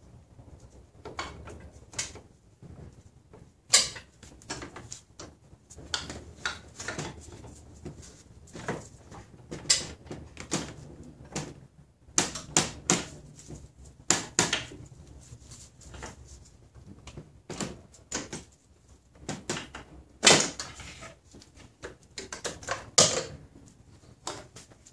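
Irregular knocks, clicks and scrapes as an old power steering high-pressure line, metal tubing joined to rubber hose, is pulled and worked up out of an engine bay, bumping against the surrounding parts.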